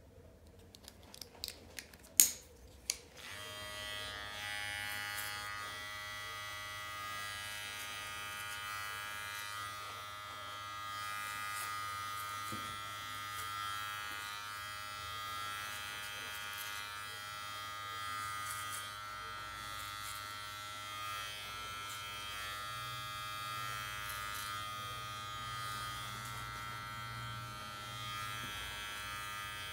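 A few sharp plastic clicks as a #2 attachment guard is snapped onto a gold-finished cordless hair clipper. About three seconds in, the clipper switches on and keeps up a steady buzz as it cuts hair.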